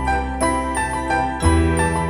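Background music: an instrumental tune with notes changing in steps over a bass line, the bass note shifting about one and a half seconds in.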